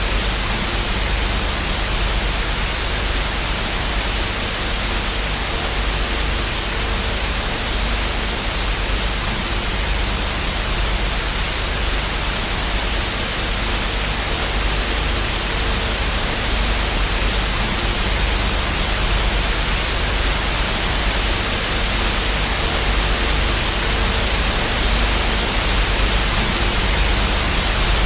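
Television static with no signal: a steady, loud hiss spread evenly across the range, with a low rumble and faint hum tones coming and going underneath.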